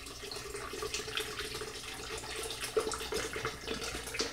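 Water being poured from a bottle into a plastic pitcher: a steady, splashing pour.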